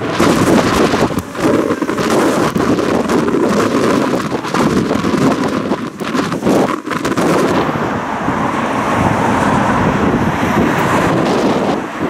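Gale-force wind blasting across the microphone: a loud, rough rush broken by sudden gusts and flutters. About seven seconds in it settles into a steadier rushing.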